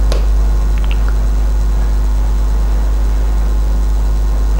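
Steady low electrical hum, with a faint higher buzz above it and a few faint clicks in the first second.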